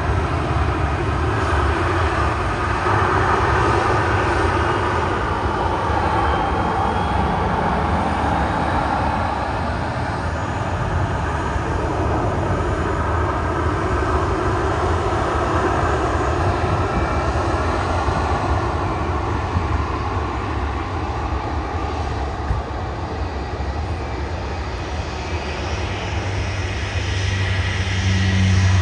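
Jet airliner engines at departure thrust, a loud, steady engine noise with no speech. A low steady hum comes in near the end.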